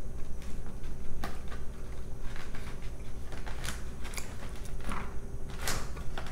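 Close-up chewing and mouth sounds, with scattered short clicks and crackles as fingers pick through quesadilla wedges in a foam takeout box. A faint steady hum runs underneath.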